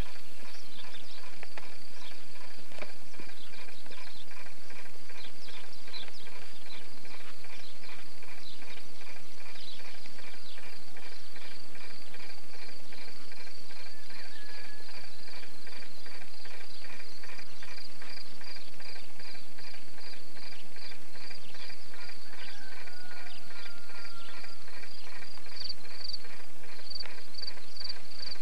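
Countryside ambience: insects chirping in a steady, even rhythm, with scattered short bird chirps and a couple of brief whistles near the end, over a constant hiss.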